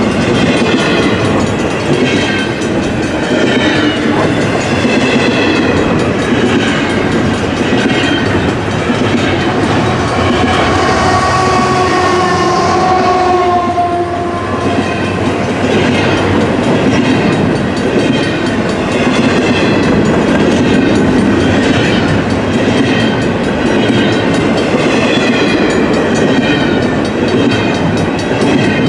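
Double-stack intermodal freight cars rolling past at speed, a steady rumble with wheel clickety-clack and wavering wheel-on-rail tones. About a third of the way in, a chord of several steady tones sounds for a few seconds, heard from a distance: the locomotive's horn.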